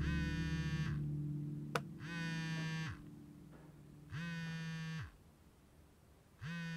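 Mobile phone vibrating for an incoming call, four buzzes of just under a second, about two seconds apart, each sliding up in pitch as it starts and down as it stops. Music fades out under the first two buzzes, and there is one sharp click a little under two seconds in.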